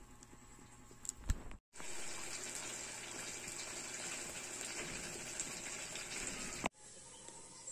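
A couple of sharp pops from a wood cooking fire, then a wok of green-bean stew bubbling steadily at the boil over the fire for about five seconds, cutting off suddenly near the end.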